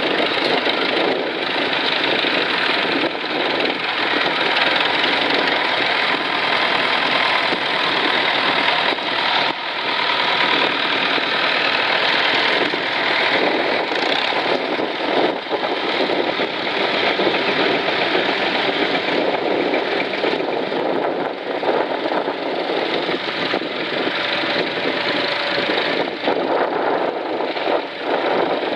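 Engines of a procession of vintage tractors running steadily as the tractors drive slowly past one after another.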